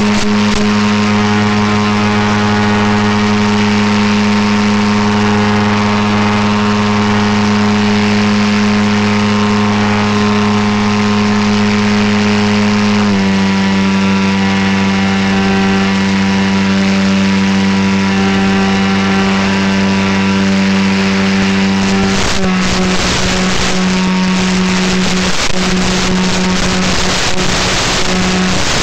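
Electric motor and propeller of an RC paramotor running with a steady drone. The pitch steps down about 13 seconds in as the throttle is eased. From about 22 seconds, crackling static with brief dropouts breaks through as the analog FPV video link breaks up.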